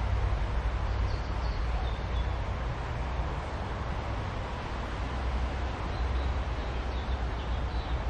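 Outdoor ambience: a steady low rumble under an even hiss, with a few faint bird chirps about a second in and again near the end.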